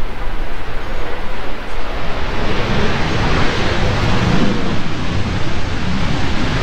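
Jet airliner, an Airbus A321, landing: a broad engine and air roar swells about two seconds in and stays loud, over a low rumble with wind buffeting the microphone.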